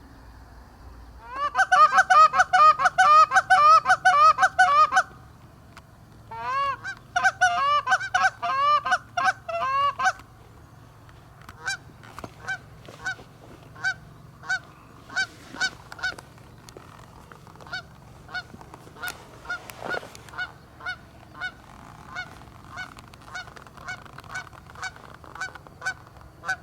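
Canada goose honking: two loud runs of rapid honks and clucks, then fainter, evenly spaced single honks about one or two a second.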